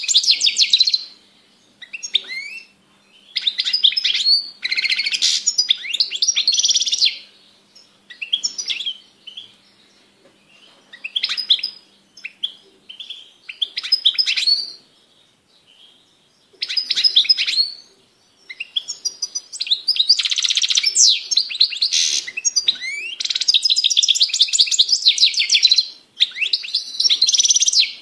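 European goldfinch singing: fast, liquid twittering phrases broken by short calls and pauses in the first half, then long, nearly unbroken runs of song in the second half.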